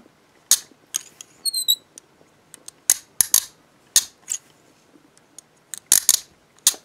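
Hiatt 1960 pattern handcuff being worked through its ratchet: a string of sharp metallic clicks at irregular intervals, with a brief metallic ring about one and a half seconds in. The crisp clicks come from a very strong spring in the lock.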